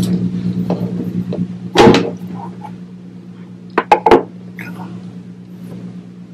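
Cables and a small phantom-power box being handled as XLR plugs are fitted: a loud knock about two seconds in and a quick cluster of clicks and knocks around four seconds, over a steady low hum.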